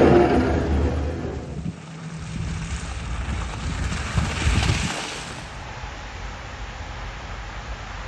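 A car engine hums and fades away over the first two seconds, then another vehicle passes with a rising and falling hiss about four to five seconds in, followed by steady wind noise on the microphone.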